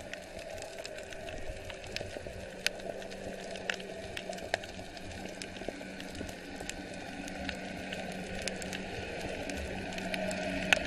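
Underwater sound picked up by an action camera in its waterproof housing beneath the sea: a steady muffled hiss scattered with sharp clicks and crackles, over a faint low hum, growing slightly louder toward the end.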